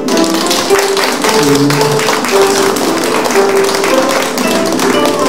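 Gayageum plucked in a flowing melody of ringing notes, under a steady patter of audience applause.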